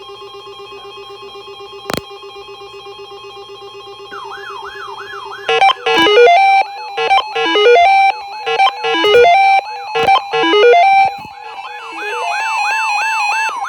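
Electronic emergency alert alarm: a steady two-tone alert tone at first, joined about four seconds in by a rising-and-falling siren wail. Then comes a loud run of stepped beeping tones with short gaps, and near the end the wailing sweeps return.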